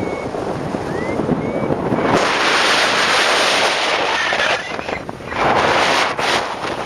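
Wind buffeting the microphone in strong gusts, swelling sharply about two seconds in and again for about a second near the end.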